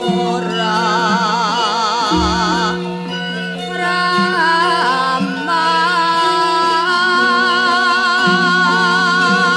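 Javanese gamelan music: sustained, ringing metallophone tones under a female singer's long held lines with a wide, wavering vibrato. A deep drum stroke sounds about two seconds in.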